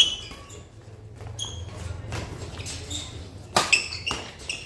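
Badminton rally: sharp racket strikes on the shuttlecock, one right at the start and two close together near the end, with short high squeaks of shoes on the court between them, echoing in the hall.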